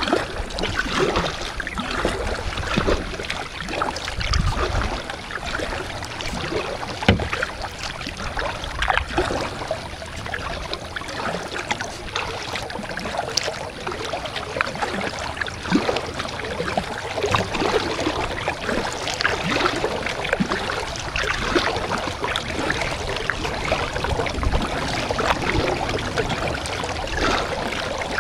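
Kayak paddling on calm water: paddle blades dipping and splashing, with water trickling and dripping off them, and a few low bumps now and then.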